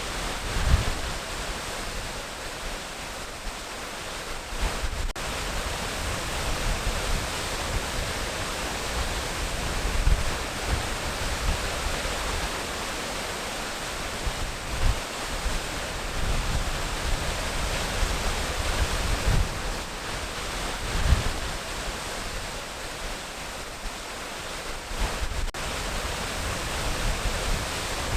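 Waterfall: a steady rush of falling water with uneven low rumbles welling up now and then.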